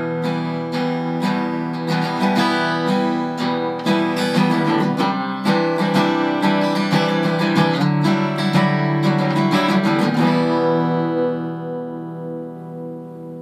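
Background music of strummed acoustic guitar chords; about ten seconds in the strumming stops and a last chord is left to ring and fade out.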